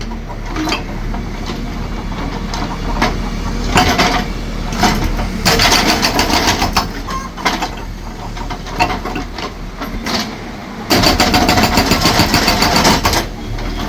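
A concrete breaker hammering rapidly on concrete, with an engine running under it. The hammering comes in stretches and is loudest about six seconds in and again from about eleven to thirteen seconds in.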